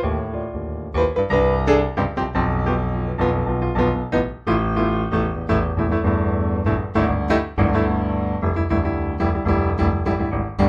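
Solo piano music, improvised-sounding, with a steady flow of notes and a sustained bass.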